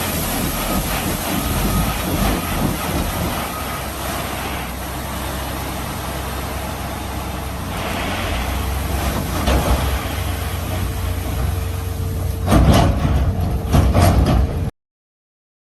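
Heavy dump truck running with a dense, noisy rumble, with a few louder bursts near the end before the sound cuts off suddenly.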